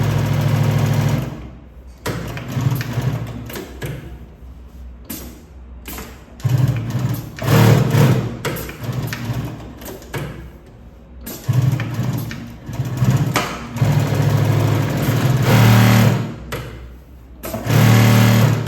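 Mauser Spezial computerized industrial sewing machine stitching thick material in several separate runs, each starting and stopping, with the high presser-foot stroke engaged, which holds the machine to a reduced speed.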